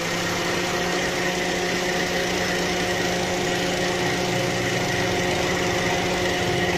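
Engine idling steadily, with a steady high whine above the running; the engine is the one being checked for a misfire.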